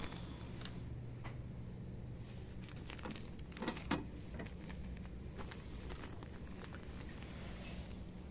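Steady low hum of a shop's background with faint rustling and handling noises, and a brief louder rattle of knocks about three and a half to four seconds in.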